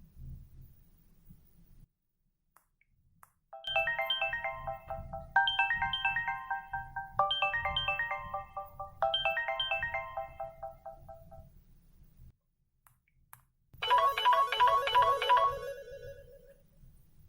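Samsung GT-E2652W Champ Duos phone's loudspeaker playing a synthesized ringtone: a short melodic phrase repeated four times, about two seconds each. After a pause comes a different short tone of rapidly repeated trilling notes that fades out.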